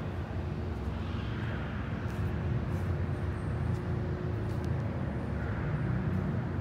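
Steady hum and rumble of running production machinery on a mat extrusion line, with a constant mid-pitched tone over it.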